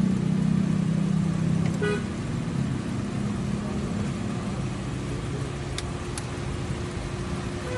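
Car engine running and fading away over the first few seconds, with a short horn toot about two seconds in, then a steady low hum.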